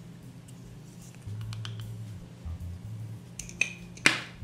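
Light clicks and taps of a measuring spoon against a small jar of xanthan gum as half a teaspoon is scooped out and added to the flour, with one sharper click near the end.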